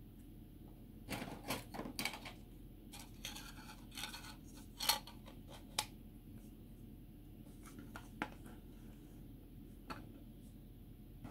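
Plastic model-kit jet-engine parts being handled: hard plastic pieces click, rub and tap against each other and on a cutting mat, in scattered bursts. The sharpest click comes about five seconds in.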